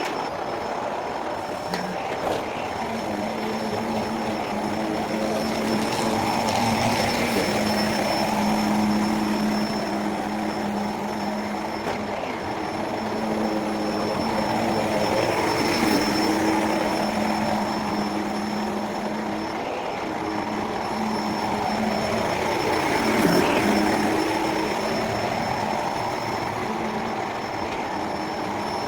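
Electrolux Precision vacuum cleaner running steadily, played back at four times speed, with a steady motor drone that swells and eases every several seconds.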